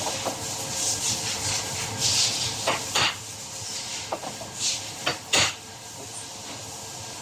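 Hand bodywork on a dented car body panel: irregular rubbing strokes over a steady hiss, with a few sharp knocks, the loudest near the middle.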